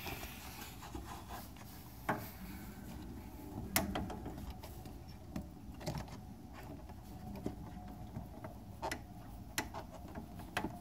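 Scattered plastic clicks and knocks with handling rustle as hands try to twist a tight headlight bulb out of its socket in the back of the headlight housing.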